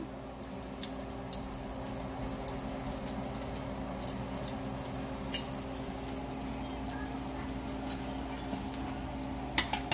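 Hot frying oil in a non-stick pot, still faintly sizzling and crackling with small scattered ticks after the stove has been turned off, over a steady low hum. Two sharp clicks near the end.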